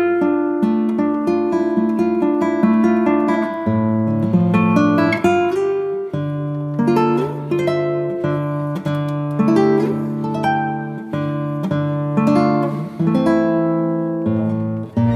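Background music: acoustic guitar playing a slow piece of plucked notes over held bass notes.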